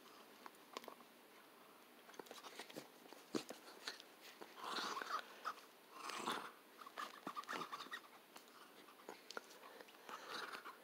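Puppy biting and chewing on a rubber ball held in a hand, with many small clicks and snaps of teeth on rubber. A few brief louder bursts of noise come about halfway through and again near the end.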